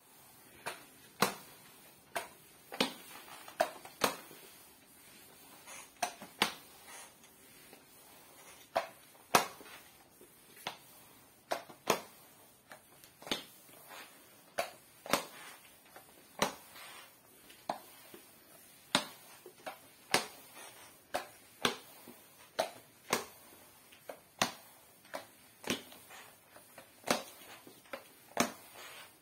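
Red Vileda flat mop pushed back and forth over a wood-plank floor, its head and swivel joint knocking with sharp, irregular clicks about one to two times a second as each stroke changes direction, with a faint swish of the pad between.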